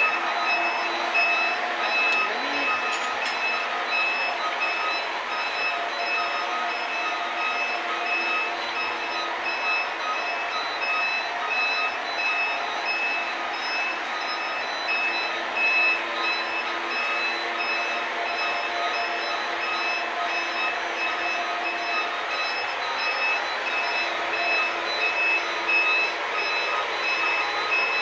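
Steam boiler's low-water alarm beeping in a rapid, steady pulse, which signals that the water is still below its set level. Under it, the electric feed-water pump runs steadily as it fills the boiler.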